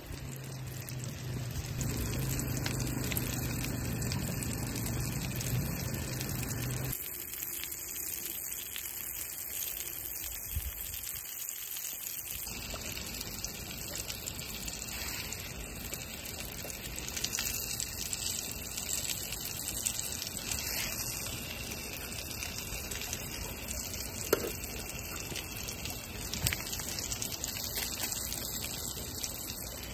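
Steady rushing of a flowing river, with a low hum over it for about the first seven seconds and a few small clicks later.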